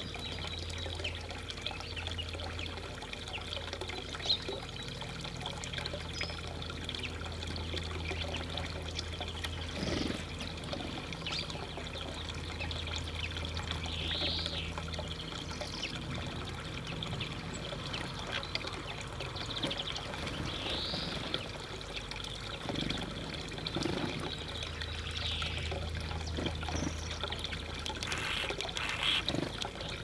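Water trickling steadily, with a few short high calls from small birds at a seed feeder scattered through it.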